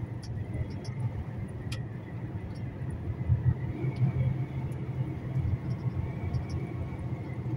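Truck running on the road: a steady low engine and road rumble.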